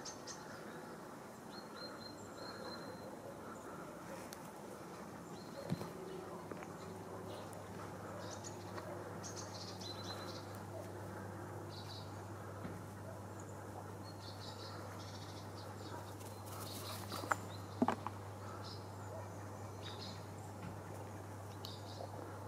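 Outdoor ambience of scattered short high chirps. A low steady hum comes in about six seconds in. A few sharp clicks stand out, the loudest a pair about three-quarters of the way through.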